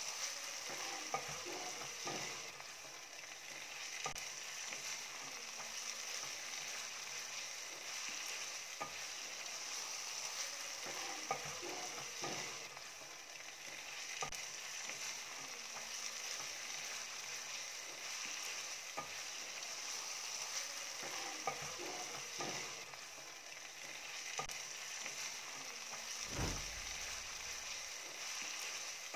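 Minced meat (keema) sizzling in a frying pan, a steady hiss with scattered clicks and scrapes of a spatula against the pan. There is a dull thump near the end.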